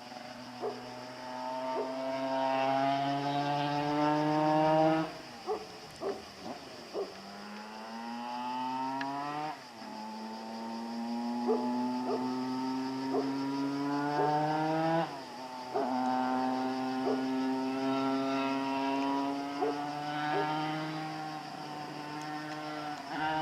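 Tuned 100 cc Simson two-stroke engine running under way, its pitch climbing slowly and steadily several times over. The pitch drops sharply about five, ten and fifteen seconds in, and a few short blips come soon after the first drop.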